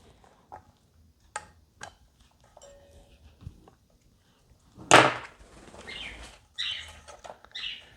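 Light clicks and taps, then about five seconds in a sudden loud whoosh and flutter as a pet bird jumps off the table, followed by a few shorter rustling flaps.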